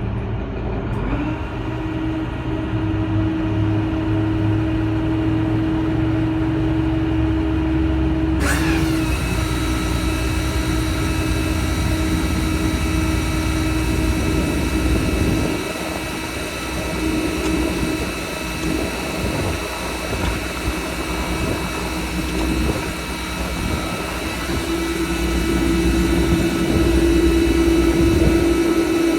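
Service truck's diesel engine running steadily, with a steady whine over it. About eight seconds in, a higher hiss and whine suddenly join in and continue.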